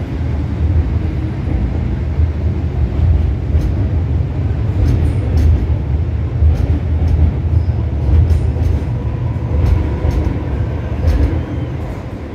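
MTR Tsuen Wan line M-Train standing at a station platform: a steady, heavy low rumble, with a few faint clicks from about three seconds in.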